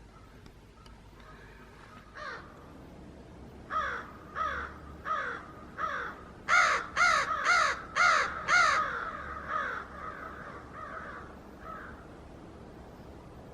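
A crow cawing in a long run of repeated caws, about two a second. The caws grow louder toward the middle of the run, then fade away.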